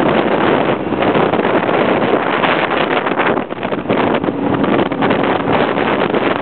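Loud wind rush buffeting the microphone on a motorcycle moving at road speed, with the motorcycle's engine running underneath.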